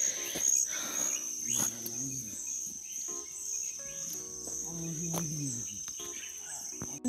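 Insects, crickets, trilling steadily in one high-pitched tone, with fainter voices beneath.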